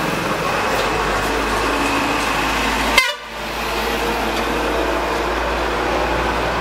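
Steady street traffic noise with vehicle horns sounding. About three seconds in there is a sharp click and a brief drop in the sound where the recording cuts, and then the traffic noise carries on.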